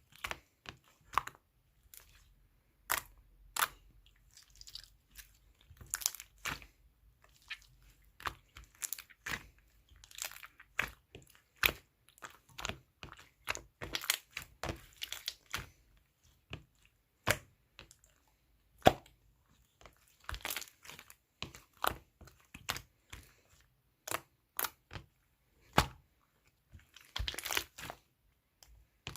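Purple slime being squished and handled by hand, giving irregular sharp clicks and short crackling pops.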